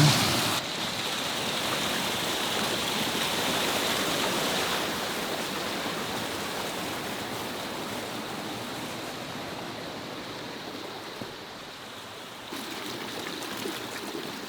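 A mountain river's flowing water rushing steadily, a little louder in the first few seconds.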